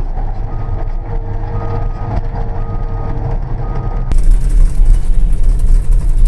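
Diesel engine of a tracked bulldozer running, heard from inside its cab, with a backup alarm beeping about once a second. About four seconds in, the sound cuts suddenly to a louder engine run with no beeping.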